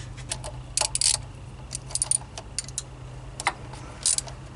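Irregular light metallic clicks and clinks of a hand wrench and fittings being worked around a power steering pump in an engine bay, over a steady low hum.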